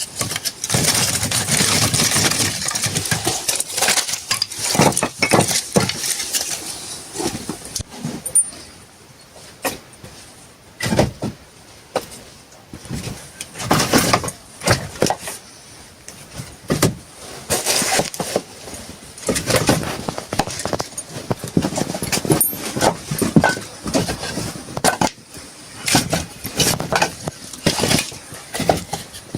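Irregular knocks and clatters of hard objects being handled, some in quick runs and some single, with a denser stretch of noisy rustling and clattering in the first few seconds.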